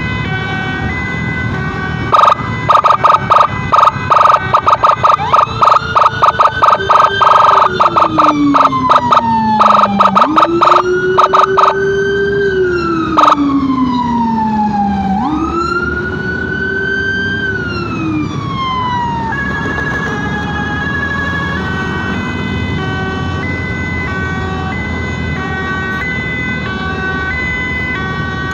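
Emergency sirens sounding in turn. First a very loud, rapid pulsing tone, then a wail that slowly rises and falls over several seconds through the middle, then a high-low two-tone alternation toward the end.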